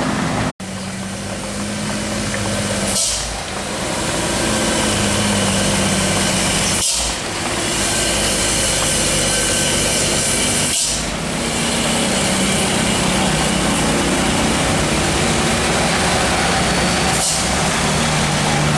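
Heavy diesel truck engine running steadily as it climbs a steep incline. Short hisses break in about four times.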